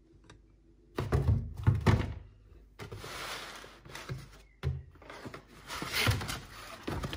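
Cardboard boxes being handled: dull thuds and knocks as a boxed stick blender set is gripped and shifted inside a cardboard shipping carton, with a stretch of scraping as cardboard slides against cardboard.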